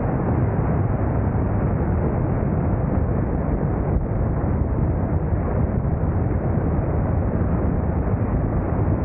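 Motorcycle riding at a steady speed: a low engine drone under a constant rush of wind over the microphone.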